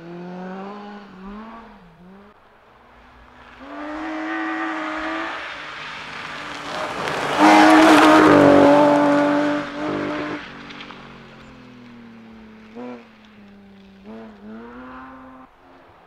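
BMW E36 rally car driving a gravel stage. The engine climbs in pitch as it approaches, then is loudest as the car passes about halfway through, with tyres rasping on the gravel. After that the engine fades away with short rev changes.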